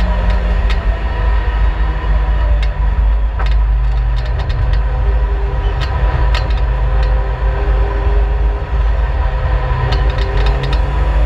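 Turbocharged Vauxhall Astra GSi race car heard from inside its cabin on track: the engine runs at a fairly steady pitch over a heavy low rumble of road and wind noise. Short sharp clicks and rattles come through here and there.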